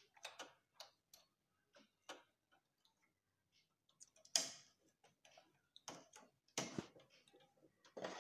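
Faint, irregular light clicks of a punch card knitting machine's metal needles and hand tool as stitches are taken off the needles one by one, with a few louder clicks about halfway through.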